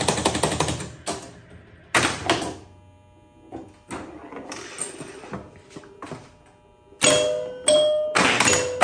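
Electromechanical pinball machine, a 1976 Bally Flip Flop, resetting for a new game: a fast clatter of relays and score reels stepping back to zero, then a single thunk about two seconds in. From about seven seconds in its scoring chimes ring out several times as points register.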